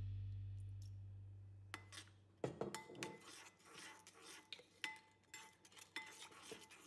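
Background music fading out over the first two seconds, then a metal utensil clinking irregularly against cookware: light clinks, some leaving a brief ringing tone.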